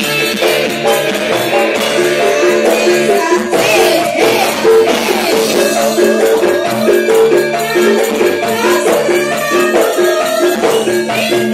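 Amplified Javanese gamelan playing a steady rhythmic piece, with metallophone notes and a shaken percussion, while female sinden singers join in with song partway through.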